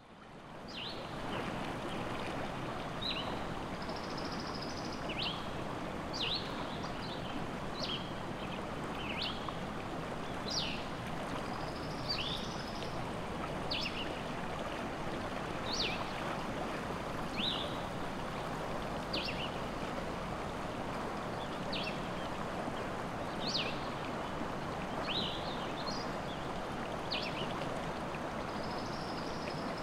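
Fast river rapids rushing steadily, with small birds giving short high chirps every second or two. The sound fades in over the first second.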